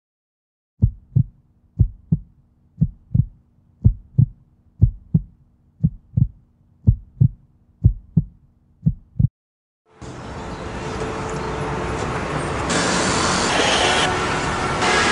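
Heartbeat sound effect: about nine double thumps, one pair a second, over a faint steady hum. About ten seconds in, after a brief silence, a loud rushing noise takes over and grows louder.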